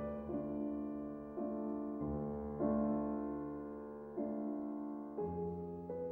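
Background piano music: slow chords struck roughly once a second, each left to ring and fade.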